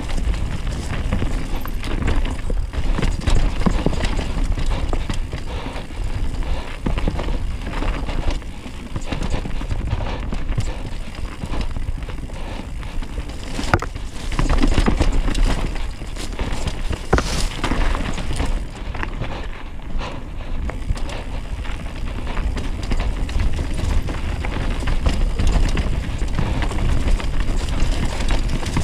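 Downhill mountain bike running fast over a dirt singletrack: tyres rumbling over dirt and rocks, and the bike clattering with sharp knocks over bumps. Heavy wind rumble on the microphone throughout.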